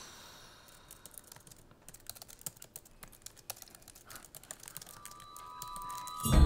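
Typing on a laptop keyboard: quick, irregular, light key clicks. Music comes in loudly just at the end.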